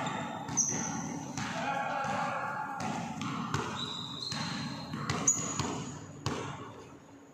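Basketball bouncing on a wooden gym floor, with a few sharp knocks, during play in a large, echoing sports hall.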